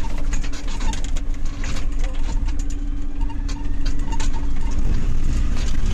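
Renault Trucks Sherpa's diesel engine and drivetrain running steadily under load, heard from inside the cab as the truck crosses rough dirt ground. Frequent short rattles and knocks from the cab and fittings jolting over the terrain.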